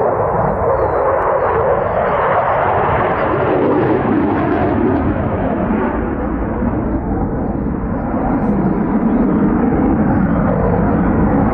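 Dassault Rafale jet fighter flying a display, its twin M88 turbofan engines making a loud, steady rush of jet noise with a deep rumble underneath.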